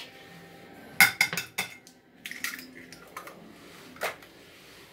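An egg cracked into a white ceramic bowl: a cluster of sharp clicks and knocks about a second in, a few lighter clinks after it, and one more sharp knock near the end.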